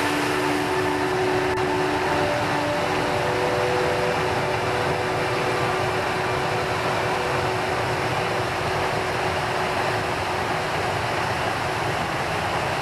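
Alpine mountain stream rushing fast over rocks in a steady white-water torrent.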